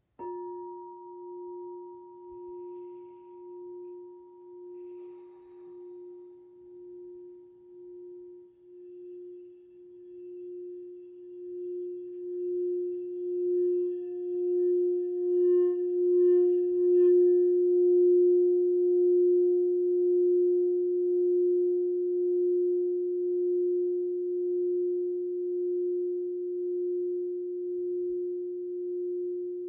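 Crystal singing bowl, struck at the start and then ringing one steady, slowly wavering tone that swells louder from about ten seconds in.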